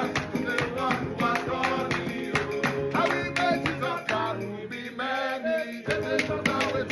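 Music with a plucked and strummed guitar in a quick Latin-style rhythm.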